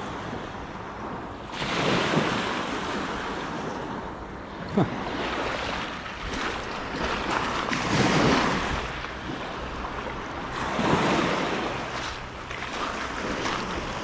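Small Lake Ontario waves washing up on the shore, a swell of surf every three seconds or so, with wind rumbling on the microphone. A single sharp click sounds a little under five seconds in.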